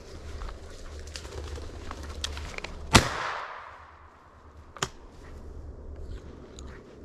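A single shotgun shot at a flushed ruffed grouse about three seconds in, a sharp crack with a fading echo. A second, much fainter sharp crack follows nearly two seconds later.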